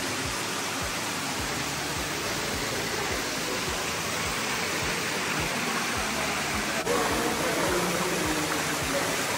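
Water running and splashing over rocks in a small underground cave stream and cascade, a steady rushing.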